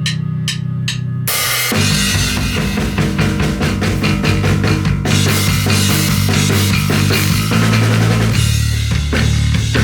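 Electric bass guitar and drum kit playing a rock song together. The bass holds a low note under a few light cymbal taps, then about a second and a half in the full kit comes in with kick, snare and cymbals over a rhythmic two-note bass part.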